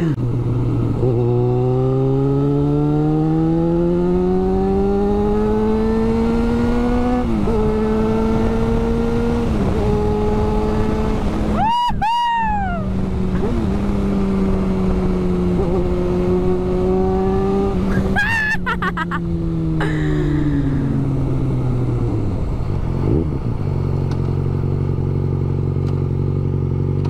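Yamaha XJ6 motorcycle's inline-four engine through an open can-style exhaust, accelerating with a rising note, upshifting and cruising, then slowing and settling to a steady idle near the end. A short high cry rises over it about halfway.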